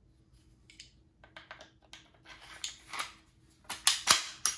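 Clicks and clacks of a polymer-framed 9mm pistol's parts being handled. The sharp clicks come irregularly and are loudest as a close cluster near the end.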